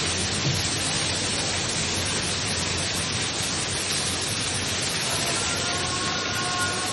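Steady rushing hiss of water pouring in through a broken office ceiling.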